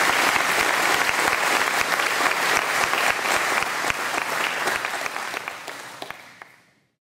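Audience applauding at the end of a speech, fading away over the last two seconds or so.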